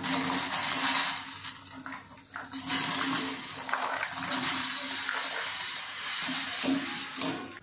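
Pieces of diced papaya dropping with small splashes into a steel pot of hot water on a lit gas burner, then a wire skimmer stirring and knocking in the pot, over a steady hiss from the burner and the hot pot.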